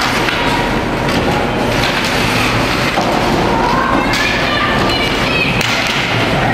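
Ice hockey arena during play: a steady din with spectators calling out and occasional thumps from the game.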